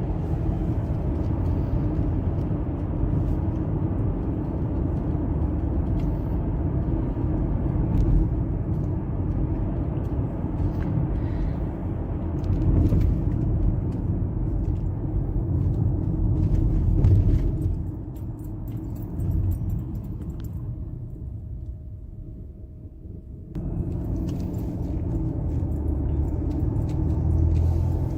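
Car interior road noise: tyres and engine make a steady low rumble while driving. It drops quieter for about five seconds near the end, then comes back abruptly.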